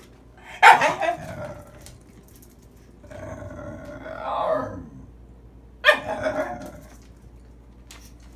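Dogs at play: two sharp, high yaps about five seconds apart, the first the loudest, with a longer wavering growl-like call between them that swells near its end.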